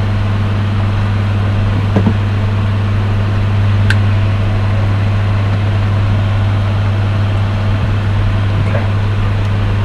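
Loud, steady electrical hum at mains frequency, with a single light click about two seconds in.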